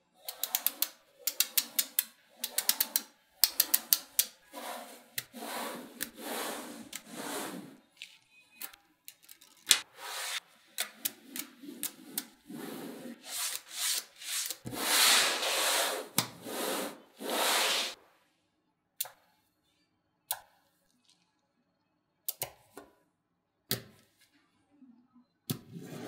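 Small metal magnetic balls clicking as they snap together, in quick runs of sharp clicks, with a longer stretch of the balls rubbing and rolling against each other and the tabletop about halfway through. Near the end only a few single clicks sound, well spaced apart.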